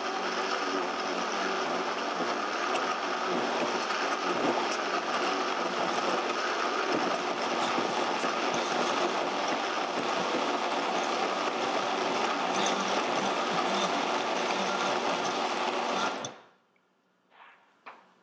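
Vitamix blender motor running at speed, blending a thick ice-cream eggnog mixture to a milkshake consistency. It stops abruptly near the end, followed by a couple of faint knocks.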